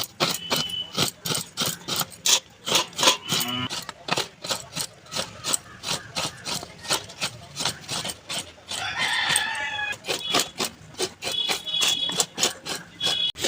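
Rapid knocks, about two or three a second, with short clucking calls from a hen at times.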